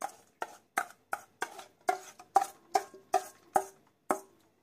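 A metal spoon knocking against the inside of a stainless steel bowl, about three sharp clinks a second with a short ring after each, to loosen set jelly cubes out of it. The knocks stop a little before the end.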